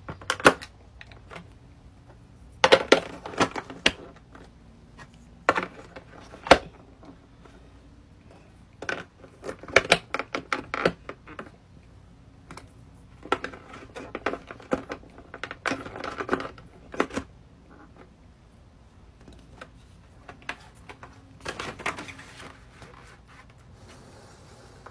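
Small hard plastic miniature grocery items clicking and tapping as they are pressed into and set in the slots of a hard plastic Mini Brands collector's case. The clicks come in irregular clusters with short quiet gaps between them.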